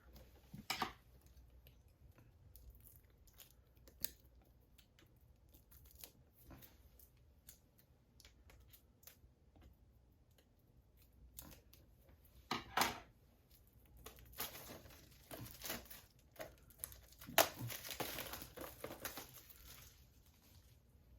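Plastic wrapping being handled and taken off a Blu-ray SteelBook: small clicks and taps, a sharp tear about two-thirds of the way through, then several seconds of plastic crinkling.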